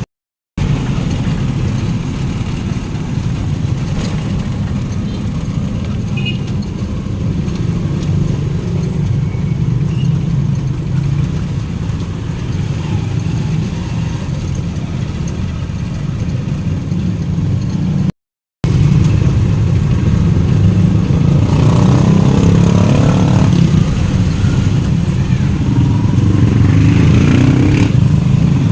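Steady engine and road noise of a moving vehicle, a dense low rumble that cuts out briefly twice, once near the start and once about two-thirds through.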